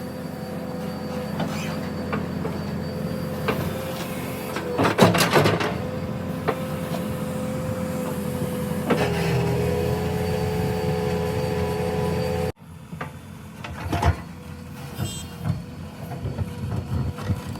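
JCB 3DX backhoe loader's diesel engine running steadily with a held whine, and the bucket and boom clanking loudly about five seconds in. About twelve seconds in, the sound drops suddenly to a quieter run broken by more clanks.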